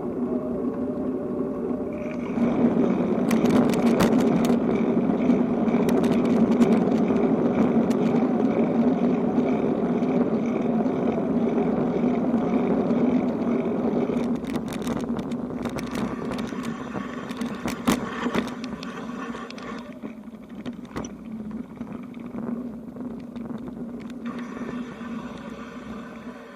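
A vehicle running with a steady humming tone, growing louder a couple of seconds in and then slowly fading away, with short runs of sharp clicks along the way.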